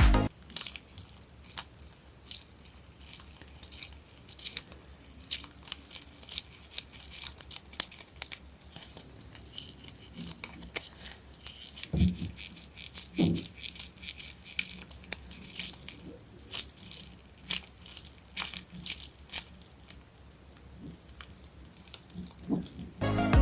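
Paper being handled by hand: crisp crinkling, rustling and tearing with many scattered small clicks, and two soft knocks near the middle.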